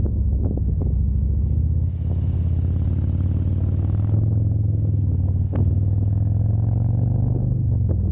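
A motor vehicle's engine running with a steady low hum. A hiss sits over it from about two seconds in, lasting about two seconds.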